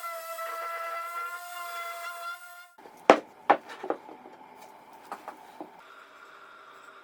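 A power tool's motor runs with a steady whine, then cuts off abruptly a little under three seconds in. Several sharp knocks of workpiece or tool handling follow, three loud ones close together, then a few lighter taps.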